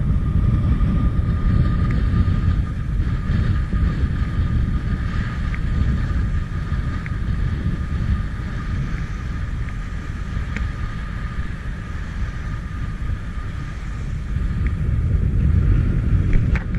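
Wind buffeting the microphone as a steady low rumble, with a faint thin whine above it.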